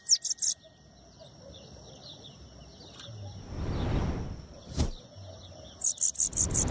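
Bananaquit singing a quick run of high, downward-sweeping notes. The song breaks off about half a second in and starts again near the end. In the gap there is a soft rush of noise and a single click.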